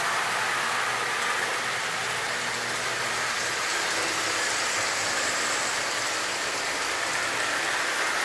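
O-gauge tinplate toy trains running on three-rail metal track: a steady clattering rumble of wheels on the rails and electric motors, holding one level throughout.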